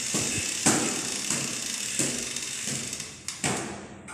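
Inline skates knocking on hard stair steps as a child steps down one step at a time: a few separate thuds and clacks spaced a second or so apart, with scraping between them.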